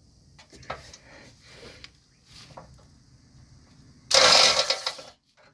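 A wrench on the crossmember bracket bolts, with faint clicks and knocks of the tool on metal. About four seconds in comes a loud, harsh burst lasting about a second that stops abruptly, as the tool slips on a bolt.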